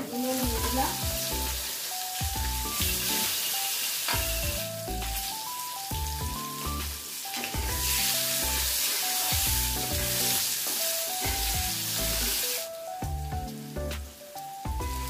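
Potato pieces sizzling as they fry in hot spiced oil in a nonstick karahi, turned and stirred with a metal spatula. The sizzling is loud until a couple of seconds before the end, then drops away. Background music with a stepping melody and a steady beat plays throughout.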